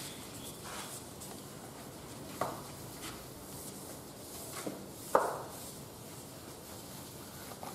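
A chalkboard being wiped with a duster: faint brushing strokes, with a few sharp knocks, the loudest about five seconds in.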